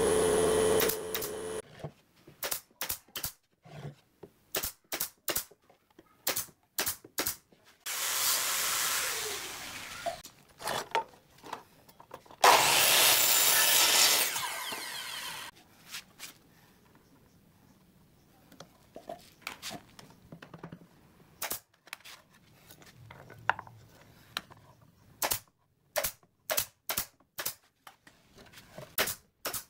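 Woodworking tool sounds in sequence. A pneumatic brad nailer fires a rapid string of sharp shots into pine boards, about two a second. Then a power miter saw runs and cuts through a board, the cut lasting about three seconds and the loudest part. Near the end a claw hammer knocks the wooden shelf in a series of light taps.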